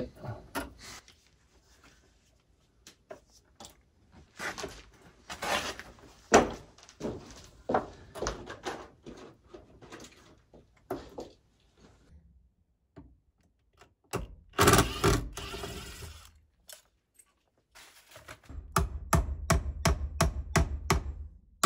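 Clicks and knocks of wires and a plastic electrical junction box being handled overhead, with a louder scraping noise of about two seconds midway. Near the end a hammer strikes the plastic junction box in a fast, even run of about three blows a second.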